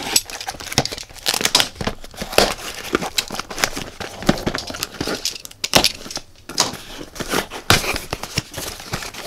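Cardboard shipping box being cut open with a utility knife, then its taped flaps torn back and handled. Irregular scraping, crinkling and ripping of packing tape and cardboard.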